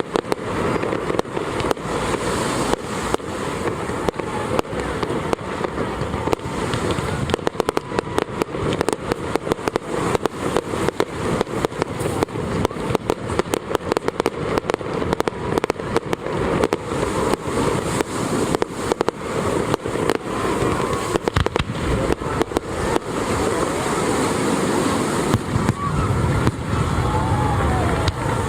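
Fireworks display going off in a continuous rapid barrage of bangs and crackles, with deeper booms near the end.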